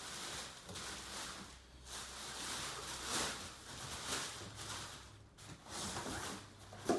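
Rustling and handling of packaging as new cricket bats are unpacked, with the noise swelling and fading over and over.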